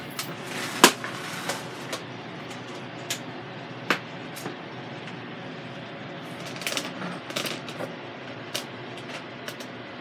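A cooking utensil and hands knocking and clicking against the stainless steel inner pot of an Instant Pot as raw ground beef is worked on the sauté setting. The sharp clicks come at irregular intervals, the loudest about a second in and a quick run of them around the middle, over a steady low hiss.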